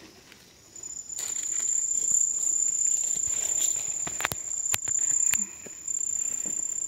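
A steady, high-pitched insect trill that starts about a second in and holds on, with a brief dip past the middle, and a few sharp clicks between about four and five and a half seconds in.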